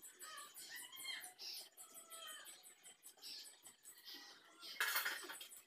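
Close-up eating sounds of a person chewing a mouthful of rice and curry eaten by hand: small wet smacks and squelches of the lips and mouth, with a louder short rush of noise near the end.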